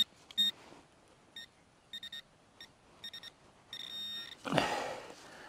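A metal-detecting pinpointer beeps in short, irregular, high beeps as it is worked through a dug plug of soil, with a longer beep about four seconds in as it closes on the target. Then comes a rustle of soil being handled.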